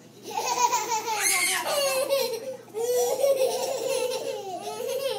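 Young children laughing: two long stretches of giggling laughter with a brief pause near the middle.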